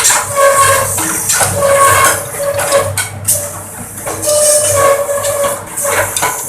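Bamboo skewer machine with a slicer and two planers running, planing bamboo strips into 15 cm satay skewers. Its steady tone surges with a hissing, shaving noise every second or so as stock passes through.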